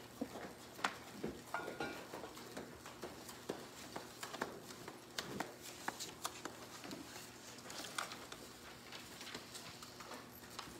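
Quiet room noise of people moving about and handling things: sparse light clicks, knocks and rustles, with one brief high squeak about two seconds in.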